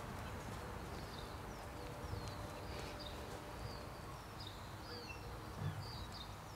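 Outdoor ambience: small birds chirping over and over above a steady low rumble, with a soft thump near the end.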